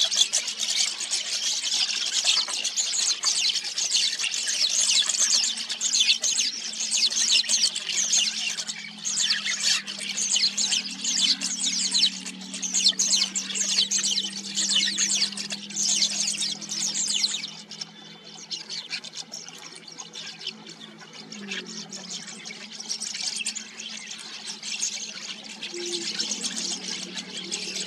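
Water pouring and trickling, a dense splashing patter that eases off about two-thirds of the way through, over a steady low hum.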